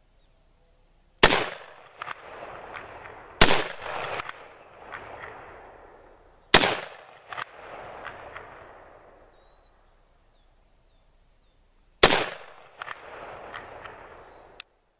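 Harrington & Richardson M1 Garand rifle in .30-06 firing four shots, the first three about two and three seconds apart and the fourth after a pause of about five seconds. Each crack is followed by a distinct echo and a rolling rumble that fades over two to three seconds. A short, sharp click comes near the end.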